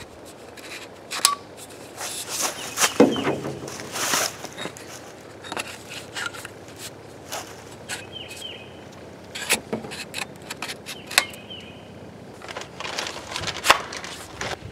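Two-piece kayak paddle being handled: scattered clicks and knocks as the metal shaft sections are twisted at the ferrule and the push-button lock is set into an offset hole.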